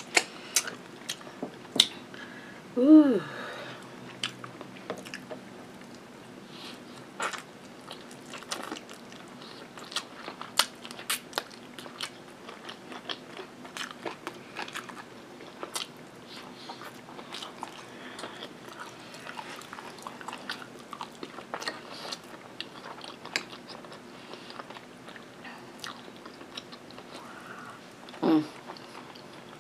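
Close-miked chewing of barbecue chicken: wet mouth smacks and clicks scattered throughout. A short hummed vocal sound comes about three seconds in and another near the end.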